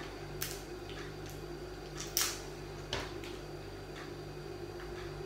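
Legs being snapped off a cooked lobster's tail shell: a few short, sharp cracks, the loudest about two seconds in, over a steady low hum.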